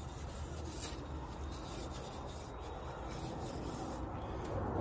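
A rag rubbing linseed oil into a wooden rifle handguard: continuous scuffing strokes of cloth over oiled wood, a little louder near the end.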